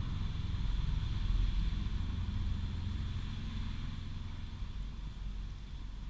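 Kerosene being poured into a container holding a motorcycle chain, a steady splashing hiss over a low rumble that slowly tapers off.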